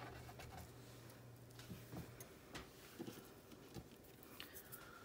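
Near silence, broken by a few faint, scattered light ticks and taps as chopped green onions are sprinkled by hand onto the egg filling on a tortilla on a plate.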